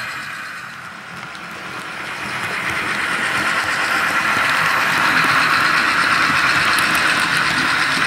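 HO-scale Life-Like Proto 2000 GP30 model locomotive's ESU sound decoder playing EMD diesel engine sound through its small speaker, mixed with the train's running noise on the track. It grows louder as the train approaches, with faint clicking near the end.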